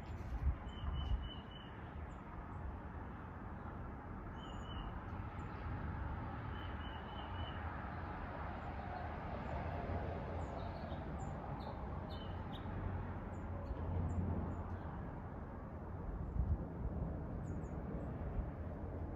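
Hampton Bay Princeton II ceiling fan running steadily, a low motor hum under a rush of air. Small birds chirp in short quick trills every few seconds in the background.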